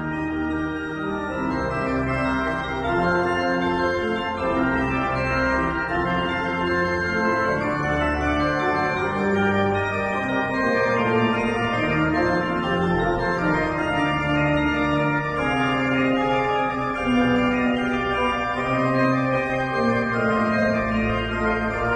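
Pipe organ playing: sustained notes in several voices over a moving bass line.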